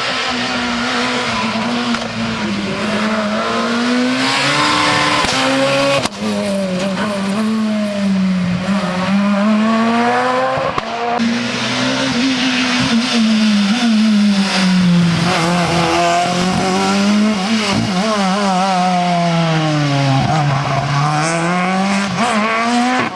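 Rally car engines at full throttle on a special stage, the engine note climbing and dropping again and again as the cars rev through the gears and lift for corners. The sound breaks off and restarts abruptly twice, about six and eleven seconds in.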